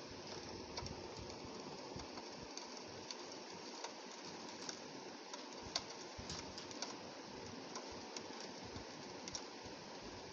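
Rain on a window pane: a steady hiss with many small drop ticks scattered through it.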